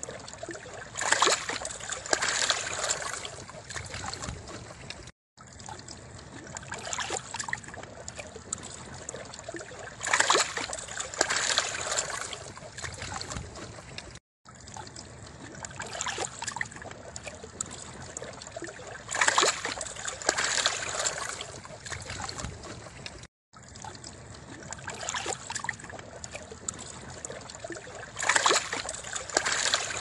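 Small waves washing and lapping at the water's edge, swelling to a louder splashy wash about every nine seconds. The sound is a short loop that repeats, with a brief silent gap at each join.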